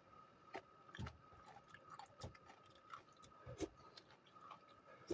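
Person eating: faint chewing with a few scattered light clicks and knocks, about one a second.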